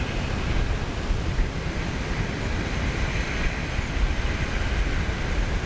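Wind buffeting the microphone over the steady hiss of small waves washing on a shingle beach.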